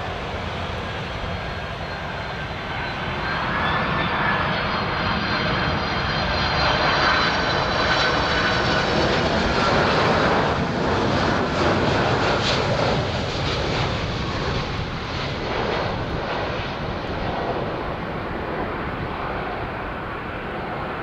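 Boeing 767 twin-engine jet airliner on final approach, its engines running at approach thrust with a steady roar and high whining fan tones. The sound swells to its loudest about halfway through as the aircraft passes, then eases off as it flares over the runway.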